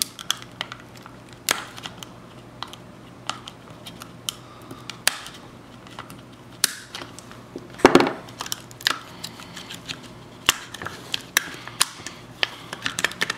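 Thick, melted plastic of a disposable cup clicking and cracking as a blade cuts and pries it off a boiled egg: scattered sharp snaps, with the loudest crunch about eight seconds in.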